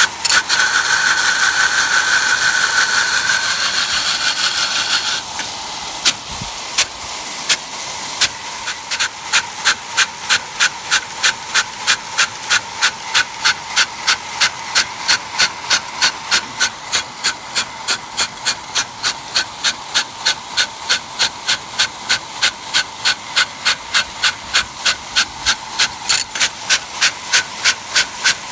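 Nelson SR150 big-gun sprinkler: the water jet hisses steadily, and from about six seconds in the drive arm clacks against the stream in a fast, even rhythm of about three strikes a second. The gun is not working as it should, a fault the owner cured by replacing the arm assembly with one on bearings.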